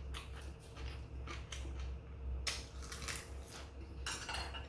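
Chopsticks tapping and picking at side dishes in small ceramic plates, with mouth-full chewing, in a string of short clicks and scrapes. About four seconds in comes a denser rustling scrape as the chopsticks dig into the stir-fried anchovies.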